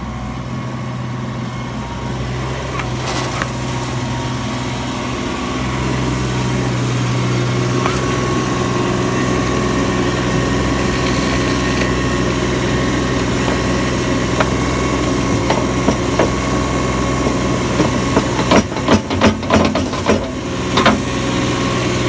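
Ditch Witch stand-on mini skid steer's engine running steadily as it works soil with its bucket. A quick run of sharp knocks comes near the end.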